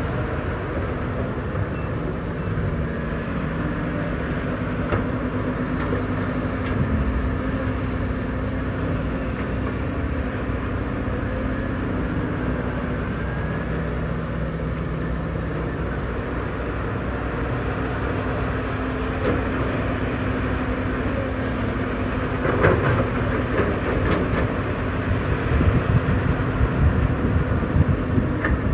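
Heavy diesel earthmoving machinery running steadily with a low engine drone. From about two-thirds of the way in, metal knocks and clanks come in and the engine sound grows rougher and louder.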